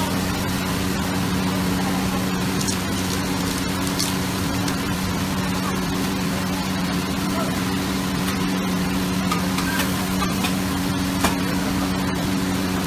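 Steady roar of a high-flame gas wok burner, with a constant hum from the big kitchen fan, as noodles sizzle in the wok. A few short scrapes or clacks of the metal spatula on the wok stand out now and then.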